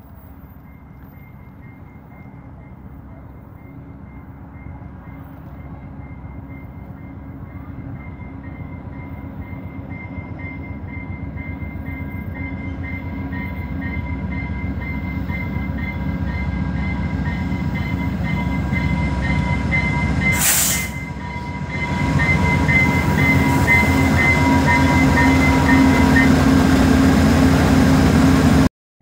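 Via Rail Canada diesel passenger train approaching, its locomotive's engine and wheels growing steadily louder as it nears and then runs close past with its cars. A brief hiss comes about two-thirds of the way through, and the sound cuts off abruptly just before the end.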